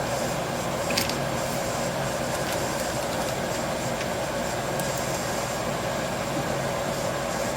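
Steady machine hum in a metal shop, with a sharp click about a second in and a few fainter ticks.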